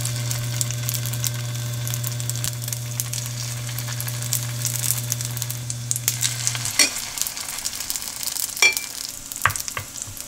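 Egg, shredded zucchini and glass-noodle batter sizzling and crackling in oil in a nonstick frying pan over low heat. A few sharp knocks of the cooking utensil on the pan come in the second half, and a steady low hum cuts out about two-thirds of the way in.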